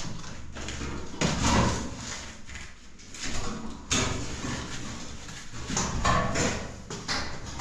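Scraping and knocking as objects are pushed and wedged against a door to barricade it shut, with a sharp knock about four seconds in.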